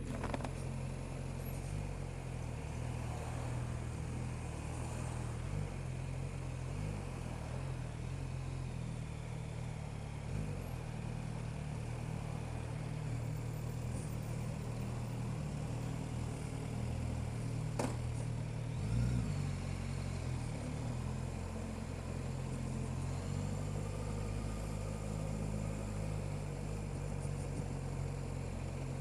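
Suzuki GSX-S1000GT's inline-four engine running at low, fairly steady revs as the bike trickles along in traffic, with one sharp click about two-thirds of the way through.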